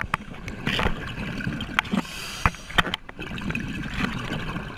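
Scuba diver's underwater camera audio: gurgling bubbles from regulator breathing over a steady low rumble of water, with a few sharp knocks.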